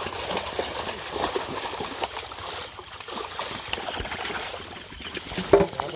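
Water splashing and sloshing as a catch of fish thrashes in a seine net drawn tight in shallow pond water, with many small, sharp splashes.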